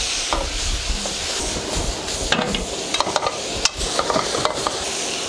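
Steel ladle stir-frying pork slices, green peppers and dried cowpeas in a hot iron wok: steady sizzling with scraping and several sharp clanks of the ladle on the wok.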